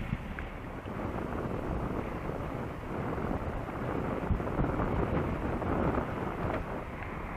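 Wind buffeting the microphone of a camera on a moving bicycle: a continuous, uneven rumble with road noise beneath it.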